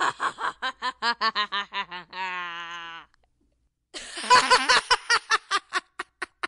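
Two bouts of laughter, rapid 'ha-ha' pulses about five a second. The first ends in a drawn-out held note about three seconds in. After a short pause the second bout starts loud and its pulses slow and fade out near the end.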